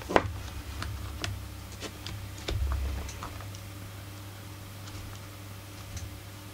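Scattered light clicks and taps of plastic and metal parts as gloved hands work at the Husqvarna 44 chainsaw's carburettor fittings, with one sharper click just after the start and a dull low bump about two and a half seconds in, over a steady low hum.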